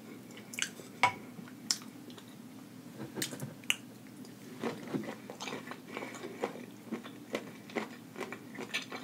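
A person eating sauce-drenched boiled seafood: a few sharp clicks in the first two seconds, then frequent chewing and mouth smacks from about halfway on.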